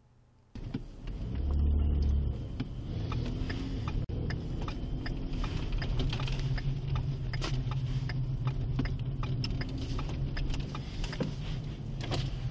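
Cabin sound of a Ford police cruiser on the move: a steady low engine and road drone, cutting in abruptly about half a second in, with scattered light clicks and rattles. There is a heavier low rumble for a second or so near the start.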